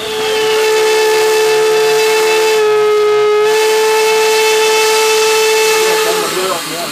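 Steam whistle of class 52 locomotive 52 8154-8 sounding one long blast of about six seconds. It is a single steady note that sags slightly in pitch midway, then stops.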